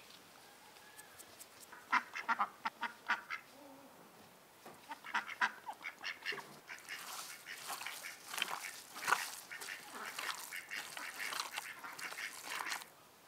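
Birds calling in quick runs of short quacking calls, first in two brief bouts and then in a longer, busier stretch from about seven seconds in that stops near the end.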